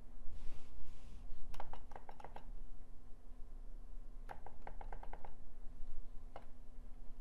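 Computer keyboard keys tapped in two short quick runs of clicks and then once more, over a steady low hum, with a brief soft rush of noise near the start.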